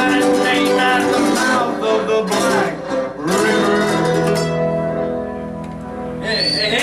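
Mandolin and acoustic guitar playing together with singing, busy picking that settles about halfway into held notes left to ring and fade as the song ends. Near the end a high wavering whistle and cheering begin.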